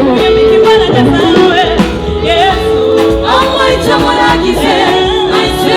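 Gospel song performed live: a sung vocal line, with other voices joining, over a band with a steady bass.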